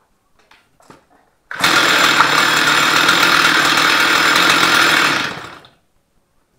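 Stihl 044 two-stroke chainsaw, its top end freshly rebuilt, running at steady high revs for about four seconds after a sudden start about a second and a half in, then winding down and stopping near the end. A few light clicks come before it.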